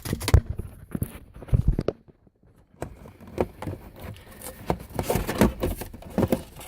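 Irregular clicks, light knocks and rubbing of parts being handled by hand, with a short quiet pause about two seconds in.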